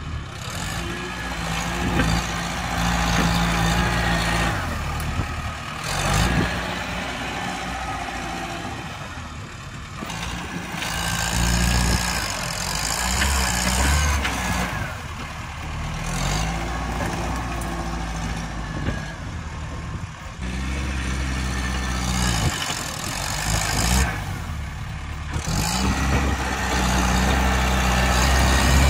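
Farm tractor engine working under load as its front dozer blade pushes into brush and soil. The engine note rises and falls repeatedly, swelling and easing every few seconds.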